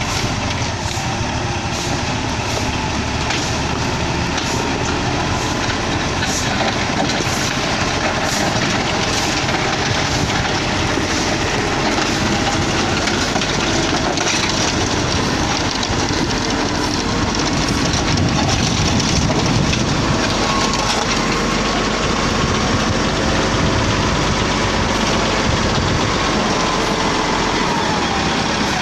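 Komatsu GD555 motor grader's diesel engine running under load as the grader smooths the road shoulder, a steady, dense mechanical rumble and rattle with scattered light clicks.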